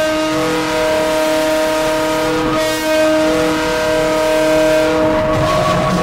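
Ice hockey arena goal horn sounding a long, loud multi-tone chord, with a brief break about two and a half seconds in. The horn stops about five seconds in and the goal song starts.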